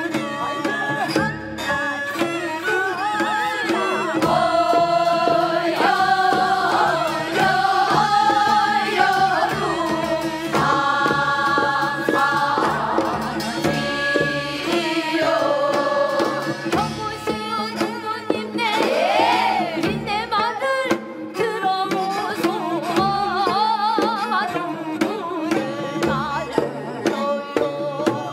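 Korean traditional singing (gugak) with drum accompaniment. A voice holds and bends long notes with a wide, wavering vibrato over a steady pattern of drum strokes.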